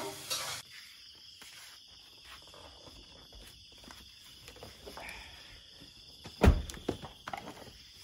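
A car door shut with one loud thump about six and a half seconds in, followed by a few small knocks, over a steady high hum of night insects and light rustling.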